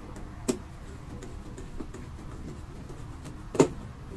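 Wires being handled and pushed into a plastic terminal-block connector: two sharp clicks, one about half a second in and a louder one near the end, with a few light ticks between.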